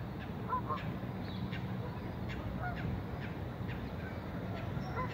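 Waterfowl on a park lake calling: a few short calls about half a second in and again near the end, among many quick high chirps, over a steady low background rumble.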